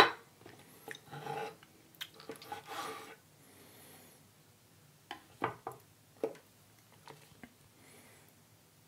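Close-miked scraping and rubbing from handling raw aloe vera and utensils at the table, with a few short sharp clicks about five to six and a half seconds in.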